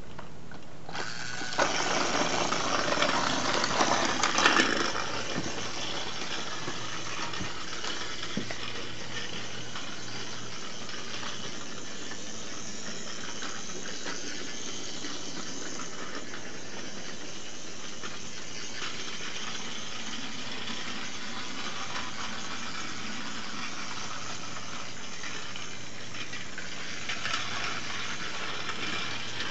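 Trackmaster Iron Bert battery-powered toy engine running on plastic track. A steady motor whir with the wheels and gears rattling starts about a second in, after it is switched on, and is loudest for the first few seconds.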